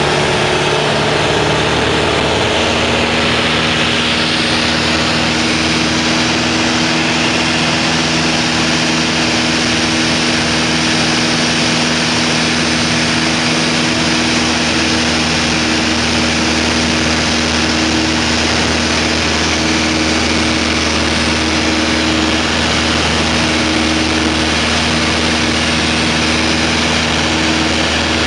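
Single-engine light aircraft's piston engine and propeller running steadily, heard from inside the cabin with air rushing past, on the approach to land; the engine note shifts about two seconds in.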